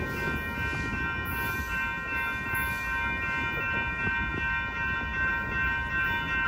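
Train running past, its low rumble overlaid by a steady, high-pitched multi-tone whine held throughout.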